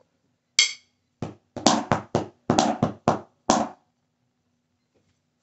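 A pair of wooden drumsticks clicked together once with a ringing click, then about nine quick strikes on a drum practice pad in a short fill, stopping suddenly near the end.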